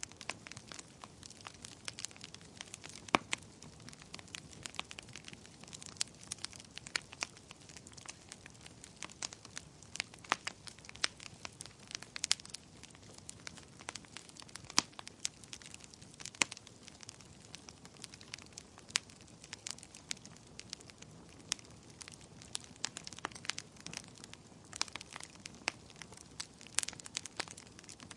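Wood fire crackling: irregular sharp pops and snaps over a low steady hiss of burning.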